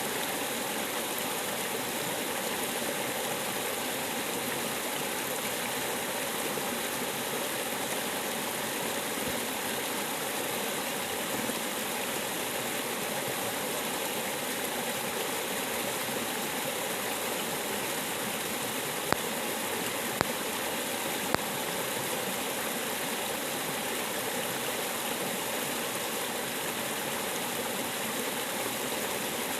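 River water rushing steadily, with three sharp clicks close together a little past the middle.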